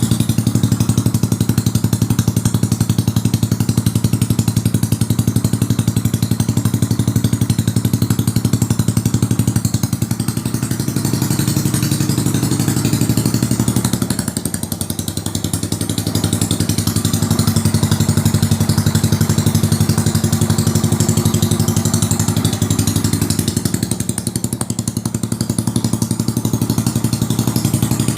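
Yamaha Mio Sporty scooter's stock single-cylinder four-stroke engine running steadily near idle through a CHA Rama 9 aftermarket exhaust pipe. Its level dips briefly three times.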